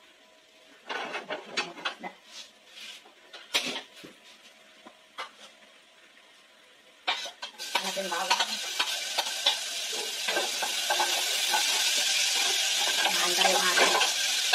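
A few light clicks and knocks of kitchen utensils, then about halfway through, minced garlic drops into hot oil in a stainless steel pot and sizzles steadily to the end, with a metal ladle scraping as it stirs.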